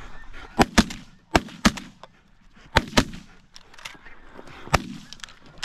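Two hunters' shotguns firing a volley at flying snow geese: about seven sharp blasts, several in quick pairs a fraction of a second apart, each trailing off in a short echo.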